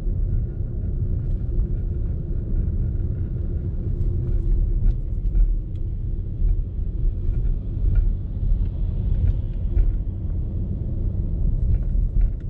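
Steady low rumble of a manual-transmission car rolling slowly, heard from inside the cabin, with a few faint clicks scattered through it.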